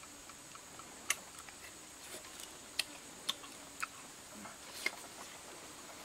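Chewing on crisp roasted chicken: a handful of sharp, scattered crunchy clicks over a few seconds, with a steady high-pitched whine in the background.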